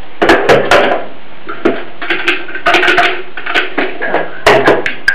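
Irregular plastic clicks, knocks and clatter of a hand blender being handled: the motor unit set into its plastic stand and the mini-chopper bowl picked up off the table.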